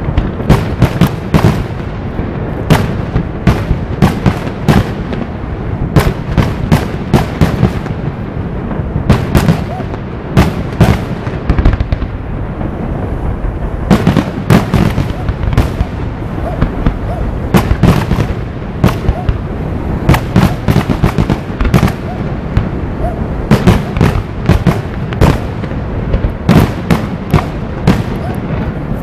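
Aerial fireworks display: an irregular barrage of shell bursts and crackling bangs, several a second, with a constant low rumble between them.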